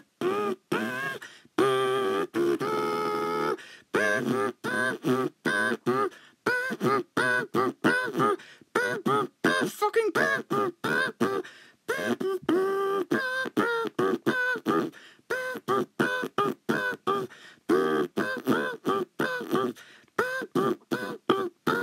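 Rapid, choppy vocal sounds in short clipped fragments, several a second, with gliding pitch and no intelligible words.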